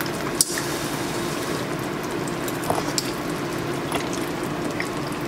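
Steady hiss of food cooking in pans on an electric stovetop, with a few light clicks of a fork against a pan.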